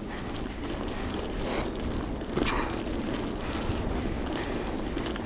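Wind buffeting the action camera's microphone on a mountain bike ride, a steady rumbling hiss, with a brief sharp sound about two and a half seconds in.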